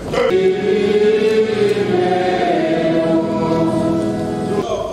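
A choir singing a slow chant of long, held notes at the funeral rite. The pitch steps up about halfway through, and the singing stops shortly before the end.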